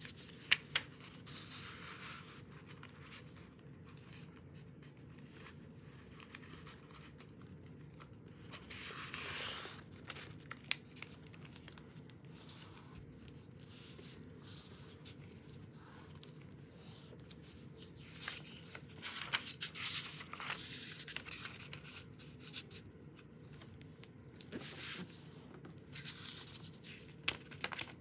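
A sheet of white paper being folded into a paper airplane on a wooden table: intermittent rustles and swishes as fingers crease and smooth the folds, with a few sharp clicks.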